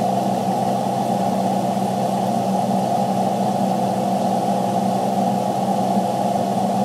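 Steady mechanical hum with hiss inside a Freightliner truck cab, unchanging throughout with no distinct events.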